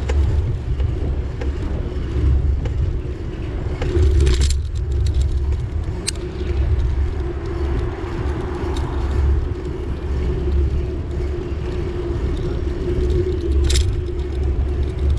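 A moving road vehicle: a steady low rumble with a constant hum running through it, and two short hissing bursts, one about four seconds in and another near the end.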